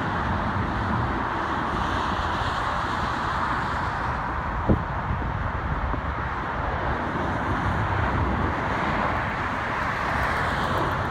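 Steady roar of a Boeing 737 airliner's jet engines on low final approach, blended with road traffic noise. A single sharp click comes a little before halfway through.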